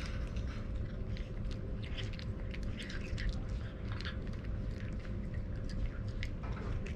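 Cats crunching dry kibble: many short, irregular crunches as they chew.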